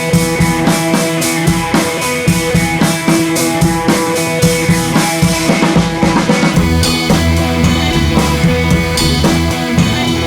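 Background rock music with a steady drum beat; a heavier bass line comes in about six and a half seconds in.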